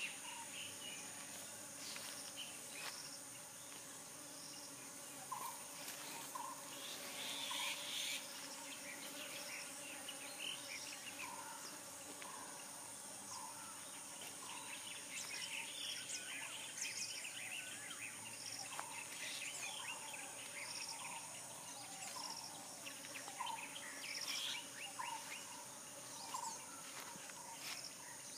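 Outdoor insect and bird ambience: a steady high-pitched insect drone, with birds calling in short notes repeated about once a second and scattered chirps.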